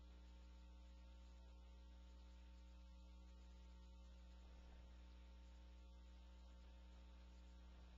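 Near silence with a faint, steady low electrical hum.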